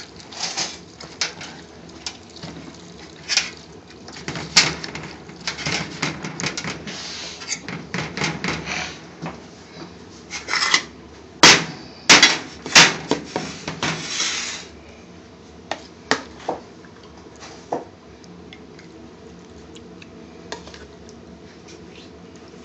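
Kitchen handling noise as chutney is hand-mixed in a plastic tub and dished onto a plate: irregular clatter and knocks of the container, with the loudest few sharp knocks about eleven to thirteen seconds in, then only scattered clicks and a low steady background for the last few seconds.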